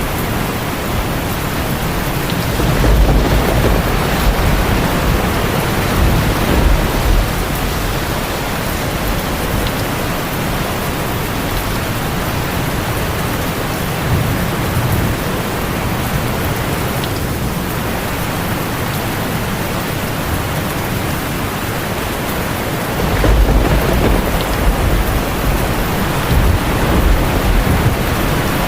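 Steady heavy rain with low rolling thunder, rumbling about three seconds in and again near the end.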